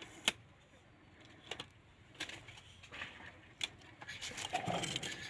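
Felt-tip marker tapping on a sheet of paper lying on a bamboo table: a few sharp single taps, the first the loudest, then the marker scratching across the paper as digits are written near the end.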